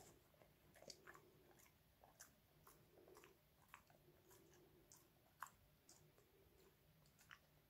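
A dog chewing a small treat: faint, irregular clicks of its teeth.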